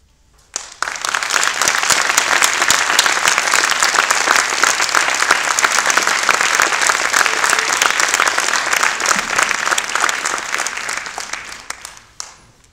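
Audience applauding: a brief hush, then clapping breaks out about half a second in, holds steady, and dies away near the end.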